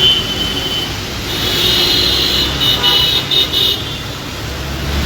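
Road traffic running under a steady rumble, with vehicle horns honking. One horn is held for about the first second, and another, louder bout of honking runs from about a second and a half in to nearly four seconds.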